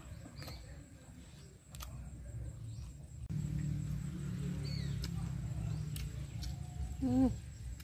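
A person eating: chewing steamed frog, with a few sharp mouth clicks over a steady low rumble that grows louder about three seconds in, and a short voiced "mm" near the end.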